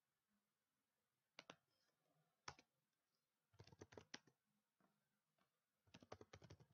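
Faint computer keyboard typing: two single key clicks, then two quick runs of keystrokes about two seconds apart.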